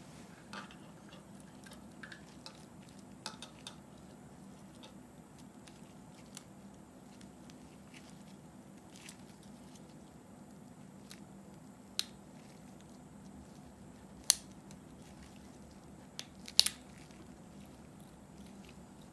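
Scattered small sharp clicks and taps from handling small parts and tools during a headset repair, with three louder clicks in the second half, over a faint steady hum.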